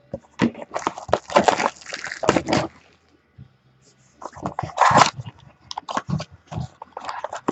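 A trading card pack being opened and its cards handled: crinkling and rustling with quick clicks and scrapes, which stop for about a second and a half midway and then resume.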